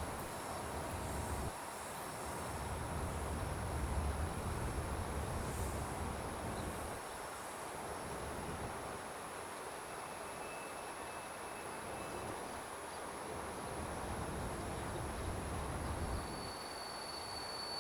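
Freight train rolling past, a low rumble that swells and fades, with a steady high-pitched insect drone behind it.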